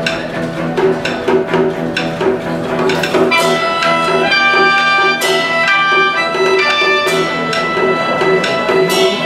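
Live Chinese traditional instrumental ensemble of sheng, guzheng and erhu playing a tune: plucked notes ring out and fade over held tones.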